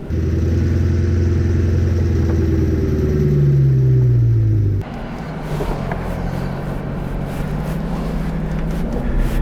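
2020 Chevrolet C8 Corvette's 6.2-litre V8, fitted with a custom aftermarket exhaust, running under load as the car pulls away, its note climbing in pitch about three seconds in. About halfway through the sound drops off suddenly to a quieter, steady engine and road drone.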